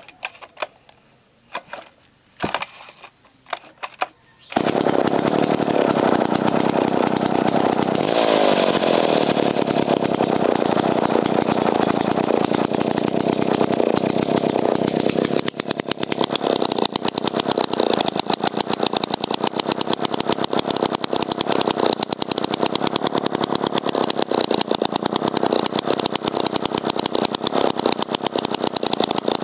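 1960 Jobu D94 Tiger chainsaw, a 93 cc two-stroke, being started. A few short bursts come in the first four seconds, then the engine catches and runs without the chain cutting, higher for a few seconds around eight seconds in. From about halfway it settles to a slightly quieter, steady run.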